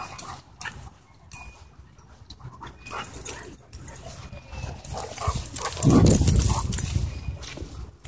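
Dogs play-fighting: scattered short growls and scuffles, with a louder, low, rough growling stretch lasting about a second, just past the middle.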